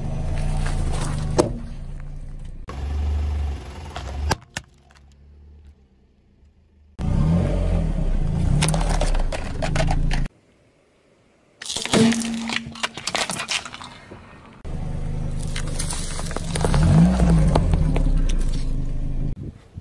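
Car tyre rolling slowly over soft plastic and rubber toys and crushing them, with the car's low rumble. The takes come one after another, with short quiet gaps between them.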